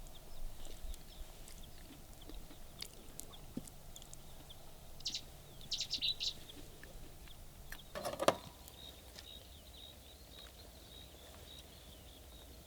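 Small birds chirping a few times in quick clusters over a faint outdoor background, with one brief sharp knock-like sound about eight seconds in, the loudest moment.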